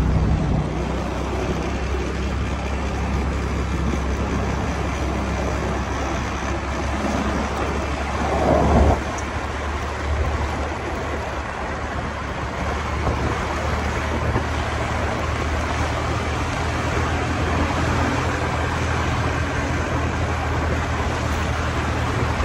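Motor scooter riding along a road: steady low engine hum under wind and road noise, with a brief louder swell about eight seconds in.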